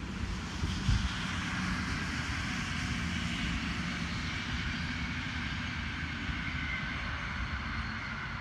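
Long passenger train hauled by a red SBB electric locomotive passing: a steady rumble of wheels on rail with a faint high whine over it. There is a brief low thump about a second in.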